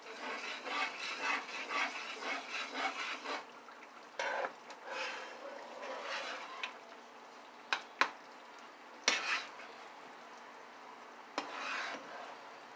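A utensil stirring thick cream sauce in a pot, with quick rhythmic scraping strokes for the first few seconds, as milk is worked in to thin the sauce. After that come scattered scrapes and a few sharp knocks against the pot.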